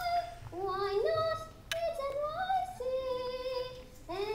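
A child singing solo into a microphone, sliding up into several long held notes.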